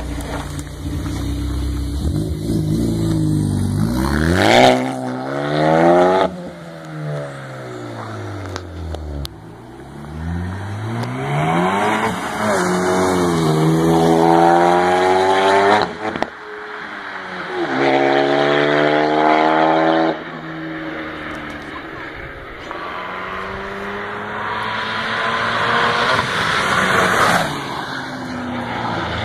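2013 Ford Focus ST's turbocharged 2.0-litre four-cylinder through an MBRP catless downpipe, accelerating hard: the engine pitch climbs again and again, dropping sharply at each gear change as the car pulls away.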